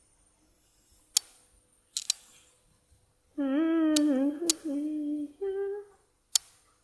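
A person humming: a wavering held note for about two seconds just past the middle, then a shorter, higher note. Several sharp clicks come before and between the notes.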